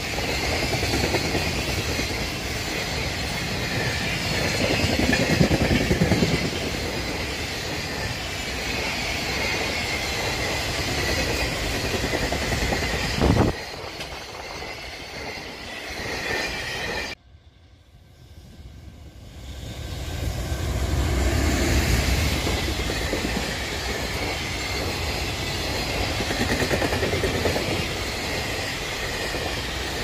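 Container freight wagons rolling past at speed, a steady rumble and clatter of wheels on rail with some high-pitched wheel squeal. The noise fades after about thirteen seconds and drops out abruptly a few seconds later. A second freight train then builds up and runs past.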